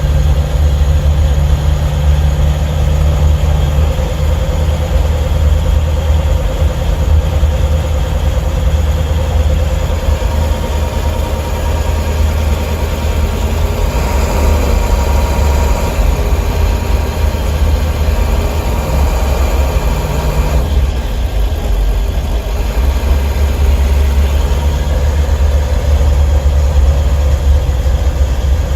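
Ford 7.3 Power Stroke V8 turbo-diesel running while the van is driven, heard from inside the cab beside the engine cover. Its sound shifts around halfway through, dipping in the upper range a few seconds later.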